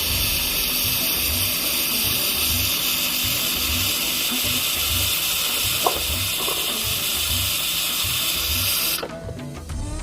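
Coffee machine hissing steadily while it runs, with a single click about six seconds in; the hiss cuts off abruptly near the end. Background music with a steady beat plays underneath.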